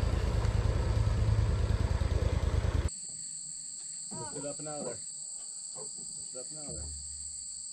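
A boat motor runs with an even low throb, then cuts off abruptly about three seconds in. What follows is a steady high-pitched insect drone, with faint voices.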